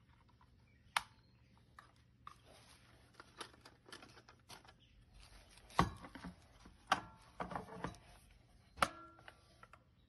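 Plastic dust bin and filter of a robot vacuum being handled over a plastic bag: scattered sharp plastic clicks and knocks, the loudest a little before six, seven and nine seconds in, with soft rustling of the bag between them.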